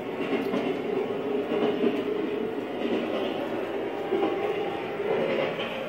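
Large-scale model train running along an overhead track loop: a steady rumble of its wheels on the rails.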